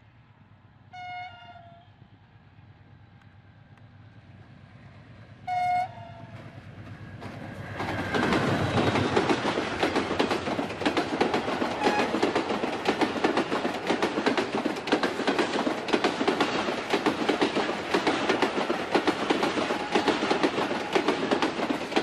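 Two short blasts on an AGE-30 diesel-electric locomotive's horn, about one second and five and a half seconds in, as the express approaches. From about eight seconds the locomotive passes at speed, and its passenger coaches go by with a loud, continuous rumble and rapid clatter of wheels over the rail joints.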